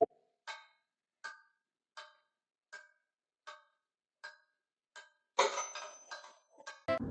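Even clock-like ticking, one short pitched tick about every three quarters of a second. About five and a half seconds in, a louder, noisier sound with a thin high tone takes over.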